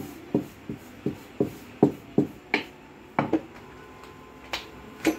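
Hands patting and slapping flatbread dough into a roti: a run of sharp slaps about two a second, pausing briefly just past the middle.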